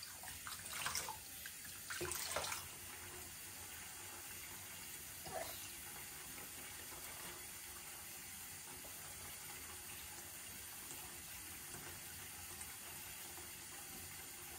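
Water running steadily from a bathroom tap, with a few brief louder sounds in the first three seconds.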